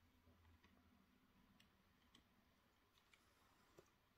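Near silence, with a few faint, scattered clicks from a plastic model railway coach being handled in the fingers.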